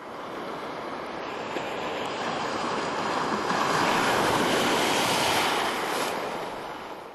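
Shallow surf washing in over a beach: a steady rushing of water that swells toward the middle and fades away near the end.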